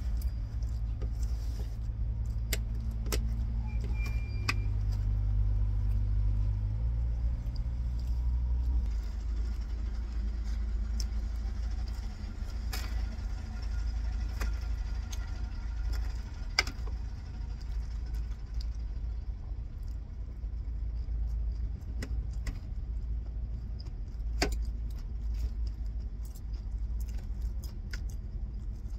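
Stainless knife and fork clinking and scraping on a ceramic plate as food is cut, a handful of sharp clinks a few seconds apart, over a steady low rumble.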